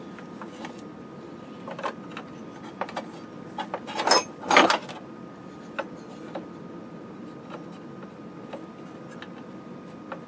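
Scattered small clicks and taps of metal parts being handled on a signal generator's steel chassis, with a louder clatter a little after four seconds in.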